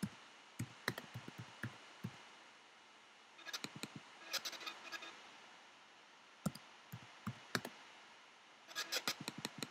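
Typing on a computer keyboard: faint keystroke clicks in four short bursts, with pauses of a second or so between them.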